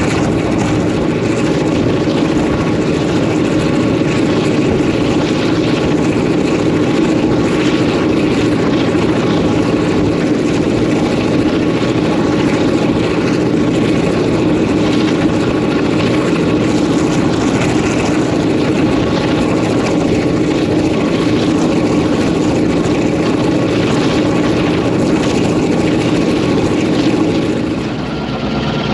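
EMD 567-series two-stroke, Roots-blown locomotive diesel running steadily under way, heard close up from on top of the moving locomotive. The level dips briefly near the end.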